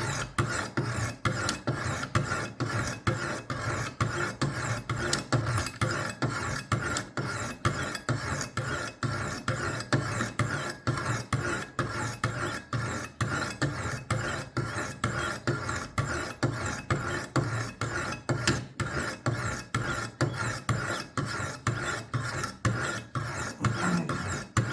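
Sharpening stones of a Wicked Edge WE60 guided knife sharpener stroking along a steel knife blade, a steady rasp at about two strokes a second, grinding the bevel to raise a burr.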